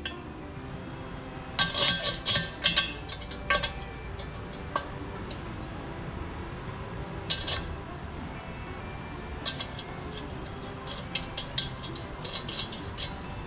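Small steel drill bushings and fixture parts clinking and tapping as they are picked up and set into a drilling fixture on an aluminium engine block: a quick run of clinks, scattered single taps, then another run near the end.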